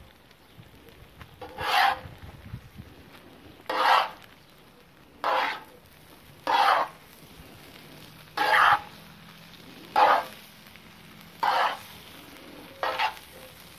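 Spaghetti being tossed with metal spatula-tongs on a hot cast-iron saj pan: a short sizzling scrape each time the pasta is lifted and turned, about eight times, roughly every second and a half.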